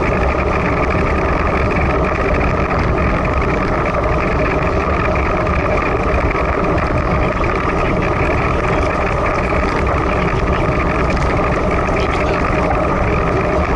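Steady rush of wind and road noise from riding a bicycle at about 29 km/h, the tyres running on a wet road.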